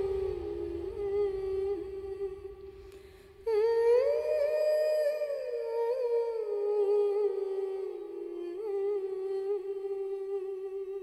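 A single voice humming a slow, held melody with small ornamental turns in pitch, a new phrase beginning about three and a half seconds in.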